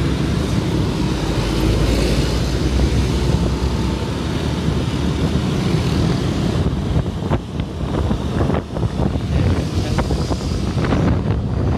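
Steady rumble of road traffic and engines, heard from a motorcycle among buses, with wind on the microphone. A few light knocks come in the second half.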